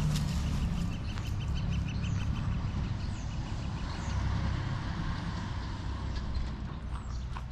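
Low steady rumble of distant road traffic, with birds: one repeats a short high note about five times a second until about three seconds in, and a few others chirp briefly later on.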